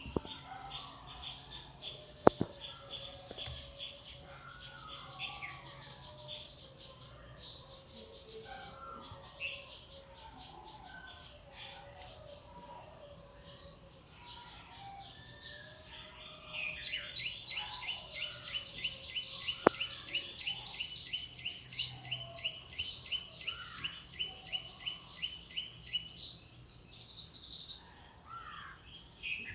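Outdoor ambience of birds chirping and calling over a steady high insect drone. A sharp click comes a couple of seconds in. From about halfway, a fast run of repeated chirps, about four a second, lasts some nine seconds.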